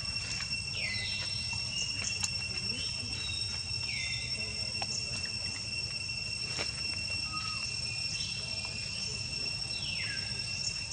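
Insects drone steadily at a high pitch. Over this, about four short calls glide down in pitch, spaced a few seconds apart, with a few faint clicks.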